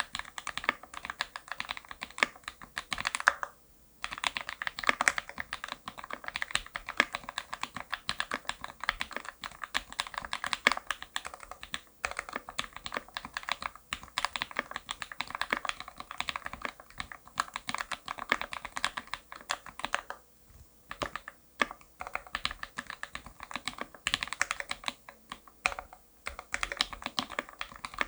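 Typing on a DGL 65pr custom mechanical keyboard with an aluminium plate, lubed Gateron Linjär linear switches and GMK Nautilus doubleshot ABS keycaps: a rapid, uneven stream of keystroke clacks, broken by a few short pauses.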